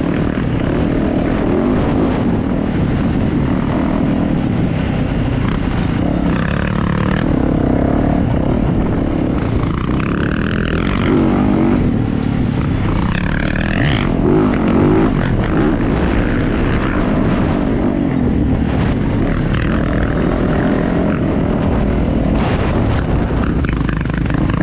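Dirt bike engine under way on a trail, revving up and down through the throttle with a couple of clear rising and falling sweeps near the middle, over a steady low wind rumble on the helmet microphone.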